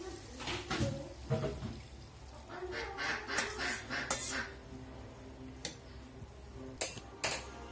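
Liquid poured from a steel bowl into a metal cooking pot, with scattered clinks and scrapes of metal on metal from the bowl rim and the ladle. The busiest stretch comes about three to four seconds in.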